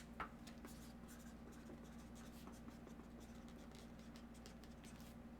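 Near silence: steady low room hum with faint light scratching and handling noises, and two soft clicks at the start.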